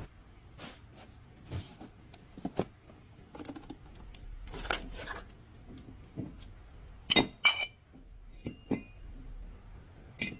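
Metal tools and parts clinking and knocking irregularly, with two sharp ringing metal strikes about seven seconds in.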